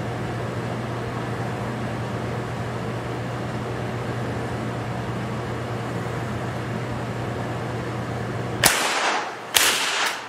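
Steady low hum of a ventilation fan, then near the end two sharp rifle shots about a second apart, each ringing briefly off the walls of the indoor range.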